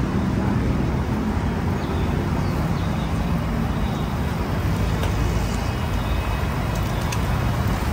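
Steady, rumbling background noise with no distinct events.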